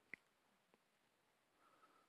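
Near silence: room tone, with one faint short click just after the start.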